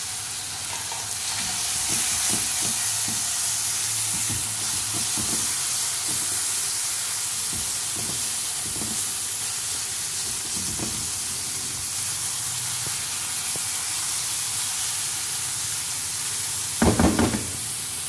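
Onion-tomato masala with ground spices frying in oil in a nonstick wok, sizzling steadily while a wooden spatula scrapes and stirs through it. There is a brief louder clatter near the end. This is the bhuna stage, where the spices are fried into the masala before water is added.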